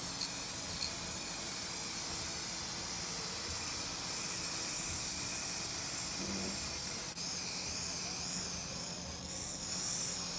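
Aerosol can of black spray paint spraying in a long, steady hiss, briefly cut off about seven seconds in, over a faint steady low hum.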